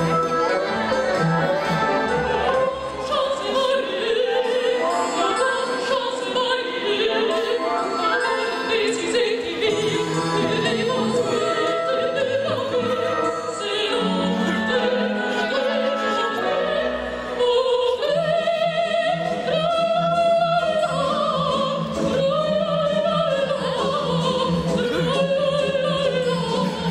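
Operatic singing with an orchestra: a sung line with vibrato on long held notes over strings and full accompaniment.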